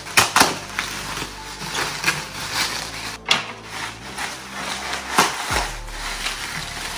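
Bubble wrap being pulled open and handled, an irregular run of plastic crinkles and rustles with a few sharper snaps, one about three seconds in.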